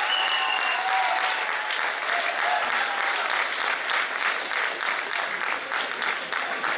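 Audience applauding: many hands clapping steadily, with a few voices faintly above it.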